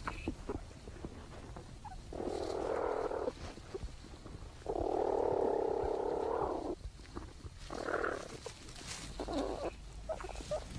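Platypuses making sound inside their nesting burrow, close to a microphone, while the young suckle from their mother: a rough, noisy burst about a second long, a longer one of about two seconds, then two short ones near the end.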